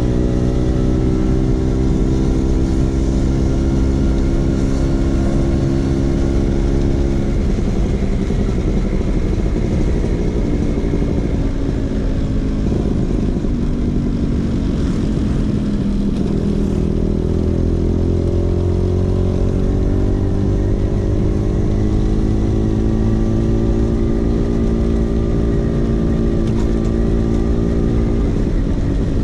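Vespa PX 150's single-cylinder two-stroke engine running through an aftermarket DRC Victory racing exhaust. It holds a steady speed, then slows so its pitch falls over several seconds, and picks up again a little past halfway before holding steady.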